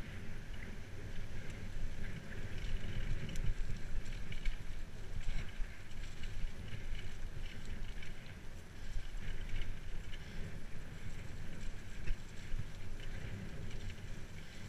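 Bicycle rolling along a muddy towpath: a steady rumble of tyres and wind buffeting the GoPro Hero 3's microphone, with scattered small clicks and rattles.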